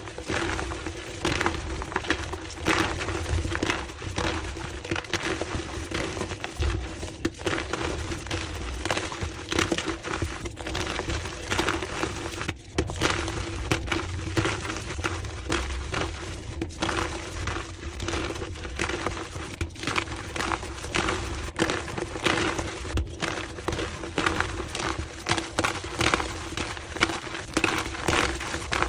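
Gym chalk being crushed and crumbled, a continuous dense run of dry crunches and crackles, sped up to double speed. A faint steady hum runs underneath.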